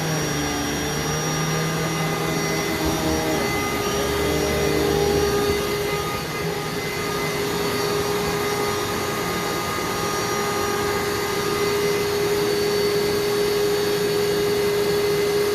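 Vacuum cleaner running steadily on carpet, its motor a constant whine. A low rumble comes and goes in the first five seconds or so.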